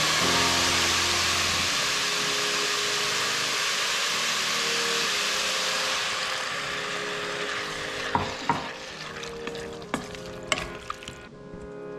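Sliced mushrooms sizzling in a stainless steel pan as a wooden spatula stirs them. About halfway through, hot water is poured in and the sizzle dies down. A few sharp knocks of the spatula against the pan follow.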